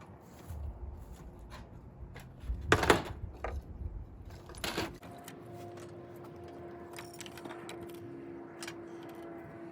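Two short, loud scraping strikes about two seconds apart, like a steel spine raked down a ferro rod, then a steady low engine drone that grows louder near the end.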